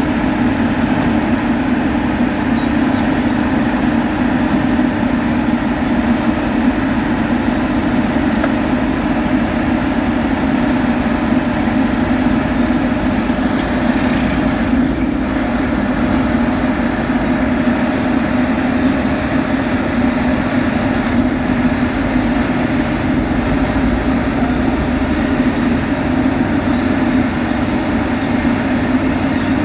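Heavy road-construction machinery running steadily: a continuous, even engine drone.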